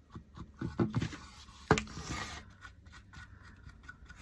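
Wax brush scrubbing and scraping over a small painted wooden piece, with a few soft knocks in the first second and one sharp tap a little under two seconds in.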